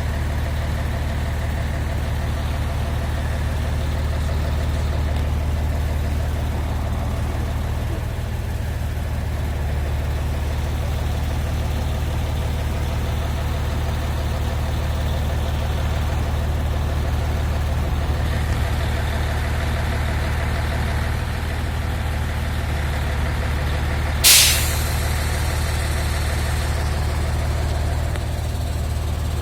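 A heavy diesel engine of a crane truck idles steadily. About three quarters of the way through there is one short, sharp hiss of released air.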